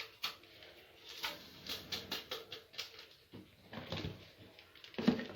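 Soft, irregular tapping, clicking and scraping of kitchen items being handled, with a couple of louder knocks near the end.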